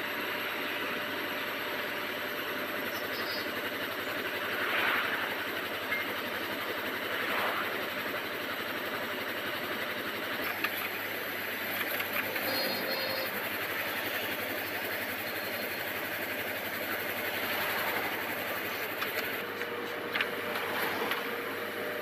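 Horizontal directional drilling rig running steadily under load as it drives its drill rod into the ground, with a few short sharp clicks.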